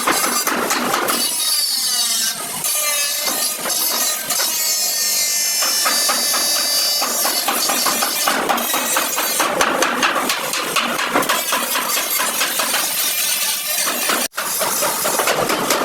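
Metal bodywork in progress: repeated hammer strikes on sheet metal, with some ringing from the panel.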